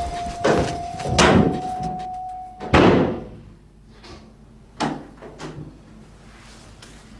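Interior door being opened and shut, with a few knocks and the loudest thud about three seconds in, followed by two fainter knocks a couple of seconds later.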